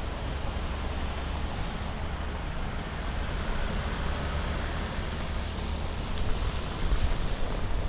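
City street ambience: a steady wash of traffic noise with a deep rumble underneath and no single distinct event.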